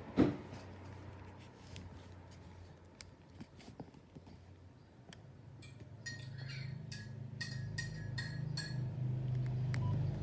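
A knock just after the start, then scattered small clicks and taps. From about six seconds in, a low hum sets in and slowly grows louder, with a run of sharp clicks about three a second.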